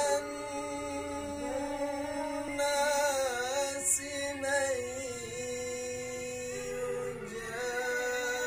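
A man's solo voice chanting unaccompanied in long held, ornamented notes that bend and waver in pitch, in the Quran-recitation (tilawah) style of maqam Nahawand.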